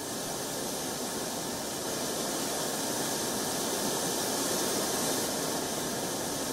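Rushing, turbulent floodwater: a steady, even rush of noise with no break.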